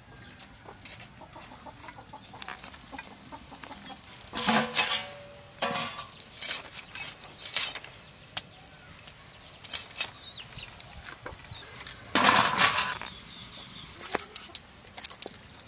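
Chickens clucking, loudest about four seconds in and again near twelve seconds, over scattered light clicks and scrapes of hand work.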